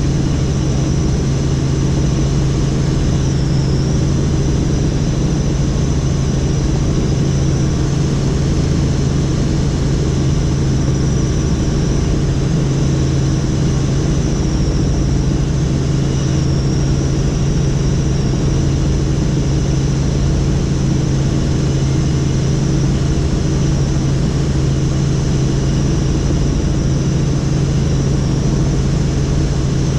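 Helicopter in flight: a steady low rotor and engine drone with a thin high whine above it, unchanging throughout.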